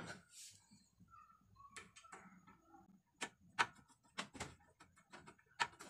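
Faint, sharp metallic clicks and ticks of a screwdriver against the screw and metal body of a gas stove burner valve. They are sparse at first and come as a quick irregular run in the second half.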